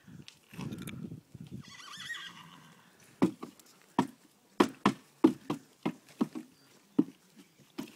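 A Fox Trotter horse whinnies briefly about two seconds in. Then its hooves clip-clop in an uneven run of about ten sharp strikes.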